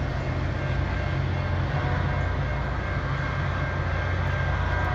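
LORAM rail grinder train running steadily as it moves away down the track, a continuous low hum under an even noisy wash.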